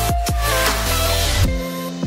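Electronic background music with deep sustained bass and heavy kick drums. The busy upper layers drop out about one and a half seconds in, leaving only the bass and kicks.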